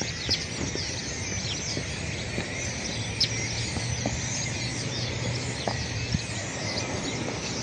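A large flock of small birds chirping together in a dense, continuous chorus of many overlapping short calls.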